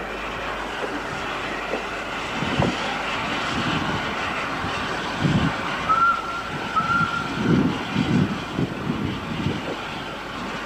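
Steam locomotive and goods train rumbling along a station track, with wind on the microphone and irregular low thumps from about two seconds in. Two short high squeaks come about six and seven seconds in.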